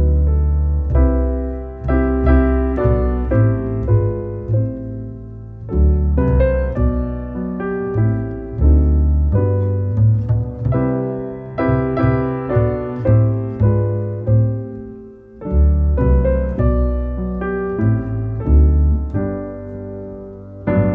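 Background piano music: a melody of struck notes over low bass notes held beneath.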